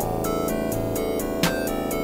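Slowed-down electronic track at about 63 beats a minute: held synthesizer chords with light percussion ticking over them and a heavier hit about one and a half seconds in.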